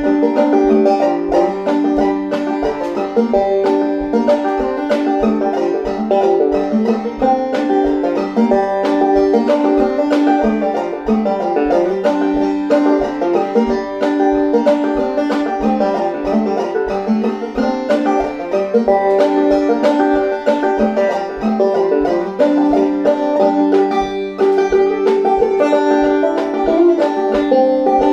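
Goldtone CC Carlin 12 open-back banjo played clawhammer style in G modal (sawmill) tuning: a steady, even stream of plucked notes and brushed strokes carrying an old-time tune.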